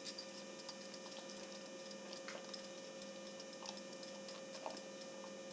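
Faint steady electrical hum, with a few faint soft clicks. Any sound from the wooden hand churner whisking curd in the glass bowl is barely heard.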